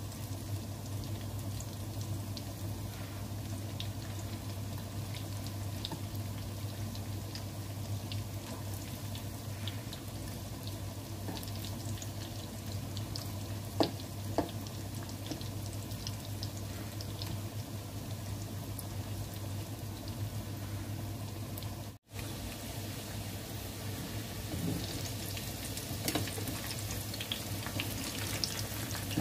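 Breadcrumb-coated tempeh-and-egg pieces deep-frying in hot oil: a steady sizzle with scattered pops and crackles over a low hum, the crackling growing busier near the end. A couple of sharp clicks a little before halfway, and the sound cuts out for an instant about three quarters through.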